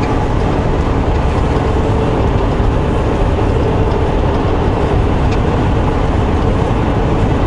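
Steady engine drone and road noise inside a semi-truck's cab while driving, with a deep rumble underneath.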